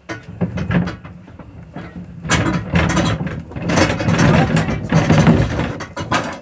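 Irregular mechanical rattling and clanking of metal parts, with a ratchet-like clicking, louder and busier from about two seconds in, as a trailer's hitch and jack are worked.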